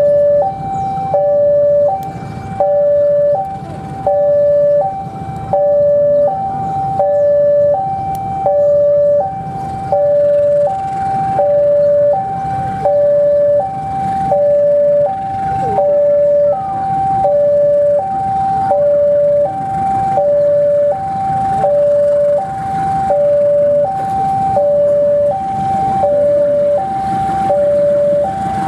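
Loud electronic two-tone warning alarm, alternating a higher and a lower note about once a second without a break, with the low rumble of an arriving diesel locomotive underneath.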